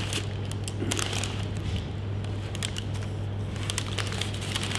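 Scattered short clicks and crackles of food being handled and eaten, over a steady low hum.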